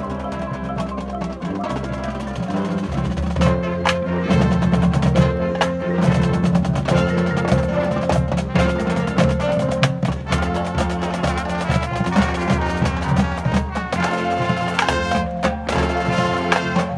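High-school marching band playing: held wind chords over drums and percussion strikes.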